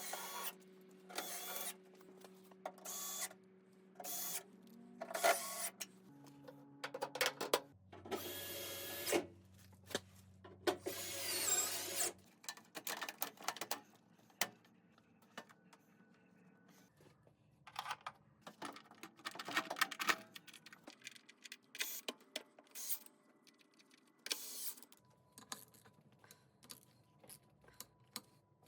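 A power drill run in many short bursts, with clinks and knocks of tools and parts between the runs.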